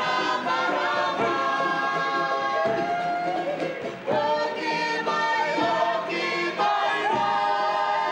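A choir of several voices singing in harmony, holding long notes in phrases that break briefly about four seconds in and again near the end.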